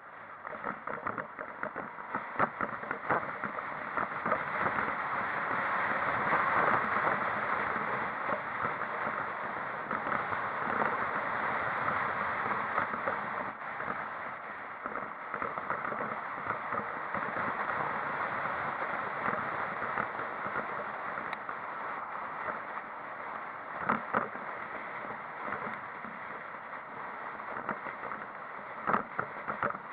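Steady rushing road and wind noise of a moving vehicle, swelling for a few seconds early on and then easing, with scattered small clicks and a couple of louder knocks near the end.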